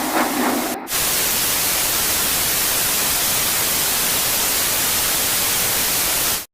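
Loud, steady white-noise static hiss. It starts abruptly after a brief dropout about a second in and cuts off suddenly near the end, like a screen losing its signal.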